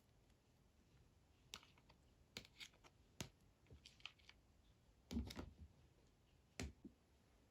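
Slime being handled by hand: faint, scattered small clicks and ticks, with a louder soft thump and crackle about five seconds in.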